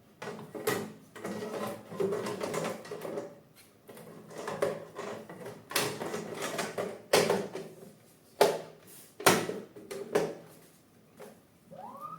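Bambu Lab A1 3D printer parts and packaging handled during assembly: rustling and scraping broken by about six sharp clicks and knocks.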